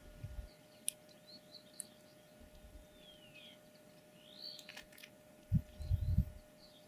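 Common linnets giving faint, scattered twittering chirps, one a short falling note about three seconds in. A couple of sharp clicks come about one and two seconds in, and low rumbling thumps near the end are the loudest sound.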